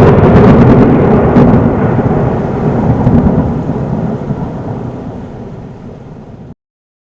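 A loud, sudden crash followed by a long rumble that slowly fades over about seven seconds, then cuts off abruptly.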